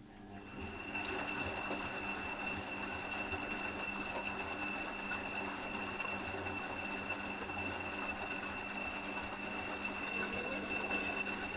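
Electrolux Aqualux EW1006f washing machine running with water rushing through it. It starts up about half a second in as a steady hum with a high thin whine on top.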